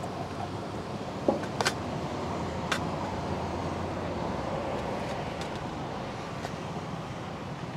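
Steady road-traffic noise from passing vehicles, with a few sharp metal clinks of a serving spoon against a steel pan about one and a half to three seconds in.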